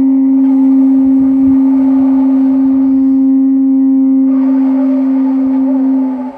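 A conch shell and an animal horn blown together in long held notes: one steady low note carries throughout, and a second, wavering note comes in stronger about four seconds in. The steady note cuts off sharply near the end.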